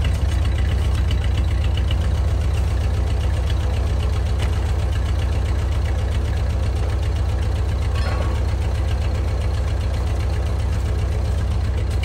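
Ford 8N tractor's four-cylinder gasoline engine idling steadily, with a brief clank about eight seconds in.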